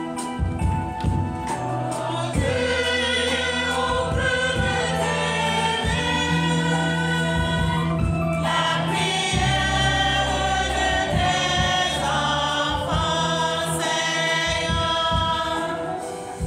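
Church choir singing the sung response after a prayer intention, sustained chords with low steady notes underneath.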